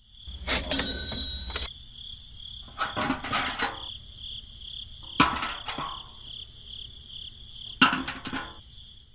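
Insects trilling steadily and high-pitched, with four short bursts of clattering knocks spread through.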